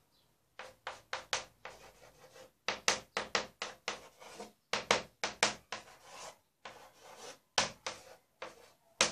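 Chalk writing on a blackboard: a quick, irregular run of short strokes, some louder than others, with brief gaps between them.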